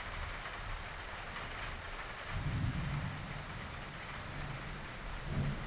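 Steady rain falling in a thunderstorm, with two short low rumbles, one about two seconds in and one near the end.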